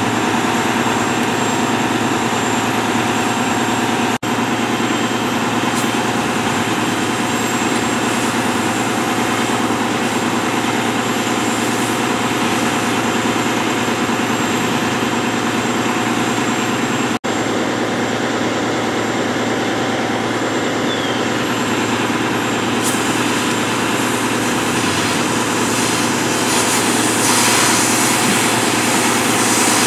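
Steady drone of a fire engine's motor and pump running while it supplies charged hose lines, with a hiss of water spray and steam that grows louder near the end.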